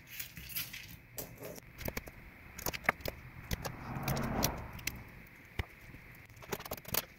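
Scattered small clicks and taps of photo-flash electrolytic capacitors being pushed one by one into a snug press-fit laser-cut cardboard holder, with a brief rustle about four seconds in.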